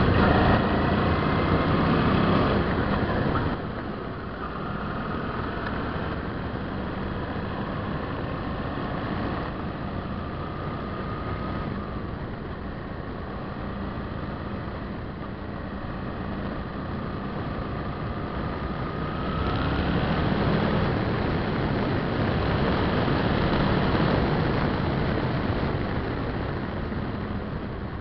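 Suzuki V-Strom 650's V-twin engine running as the motorcycle is ridden. It rises in pitch and is louder for the first few seconds, eases off about three and a half seconds in, and runs lower for a long stretch with a few gentle rises. It picks up again about two-thirds of the way through and falls away near the end.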